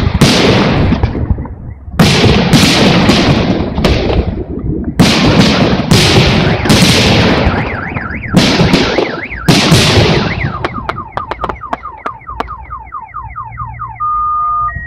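Aerial firework shells bursting in quick succession, each bang followed by crackling that dies away, thinning out after about ten seconds. Under and after them, a car alarm warbles up and down in a fast repeating cycle that quickens, switching to a steady tone near the end.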